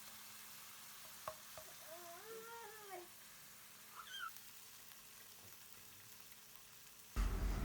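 A cat meows twice, faintly: one longer rising-and-falling meow, then a shorter, higher one. Under it runs a low hiss of chicken frying in oil, and near the end loud sizzling cuts in abruptly.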